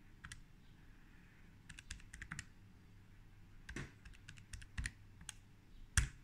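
Key presses on a Texas Instruments TI-30XIIS scientific calculator: about a dozen short clicks at uneven spacing, some in quick runs, as a calculation is keyed in.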